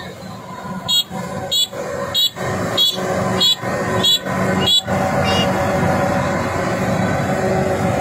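Kubota DC-93 combine harvester's diesel engine and threshing machinery running steadily while it cuts rice. From about a second in to about five seconds, a row of about seven sharp high chirps sounds over it, roughly one every 0.6 s.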